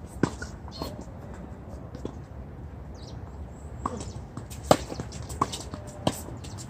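Tennis balls struck by rackets in a doubles rally on a hard court: sharp pocks, one about a quarter second in, then a quick run of three, each about two-thirds of a second apart, in the second half.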